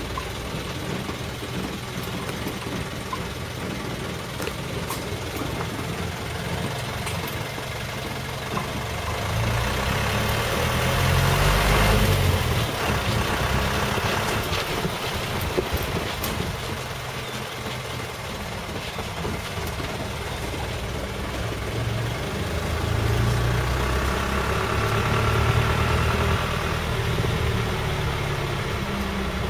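Engine of an open-sided safari vehicle running steadily, growing louder twice, about a third of the way in and again near the end.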